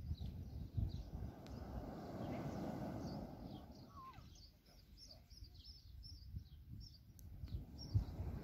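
Small birds chirping over and over, with wind rumbling on the microphone that dies down in the middle and picks up again near the end.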